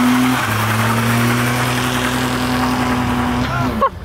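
Small car's engine revving high and held there while its front tyre spins on loose gravel, with the hiss of spraying grit; the sound cuts off sharply near the end.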